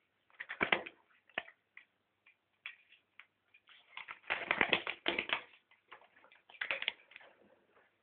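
Rainbow lorikeet bathing in a shallow hand basin, flapping its wings in the water in short bursts of rapid splashing, the longest and loudest burst about four seconds in.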